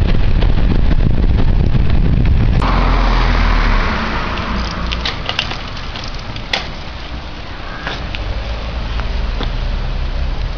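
Wind buffeting the microphone of a camera riding on a moving recumbent bicycle, a loud low rumble. About three to four seconds in it gives way to a quieter steady background noise with a few sharp clicks.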